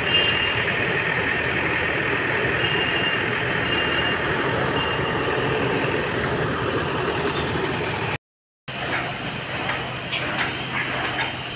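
Construction-site noise: a heavy vehicle or machine engine running steadily, with a few short high beeps in the first half. After a brief cut about 8 seconds in, there are sharp metallic clinks and knocks over a low hum.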